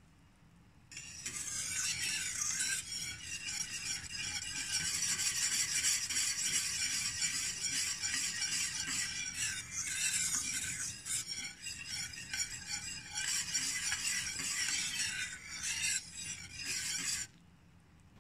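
A wire whisk stirring a simmering agar-agar mixture in a pot: a steady hiss of bubbling and whisking that starts about a second in and cuts off suddenly near the end.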